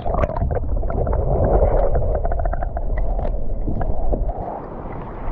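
Sea water heard through a camera held just under the surface: a muffled, steady low rumble and wash, with many small scattered clicks and crackles. It eases off a little after about four seconds.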